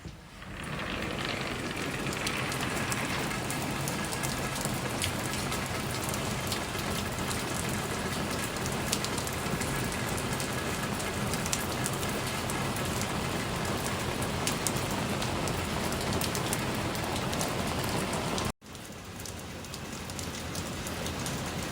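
Steady heavy rain falling, a dense hiss dotted with the patter of individual drops. It breaks off for an instant near the end, then goes on a little quieter.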